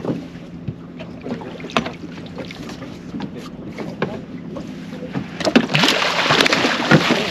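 Small fishing boat's motor running low and steady, with scattered knocks and clicks. Near the end there is a loud rush of noise lasting about a second and a half.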